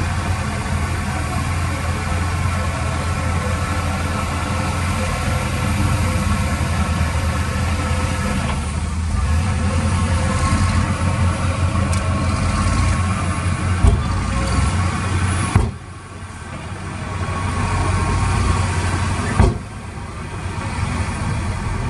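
Heavy diesel engine running steadily with a deep hum, broken by sharp knocks about two-thirds of the way in and again near the end, each followed by a sudden drop in level that climbs back.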